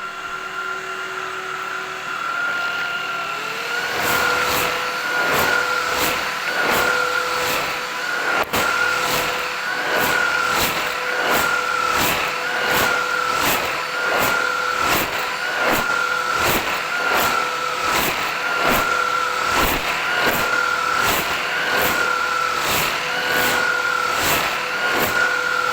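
Philips 8000 Series vacuum cleaner running with a steady motor whine. About three and a half seconds in it steps up in pitch and loudness, then holds steady with an even pulsing about one and a half times a second.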